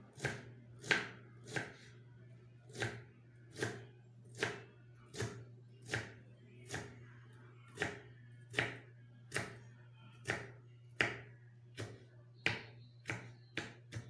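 Kitchen knife chopping on a wooden cutting board in slow, separate strokes, a little under one a second, quickening near the end.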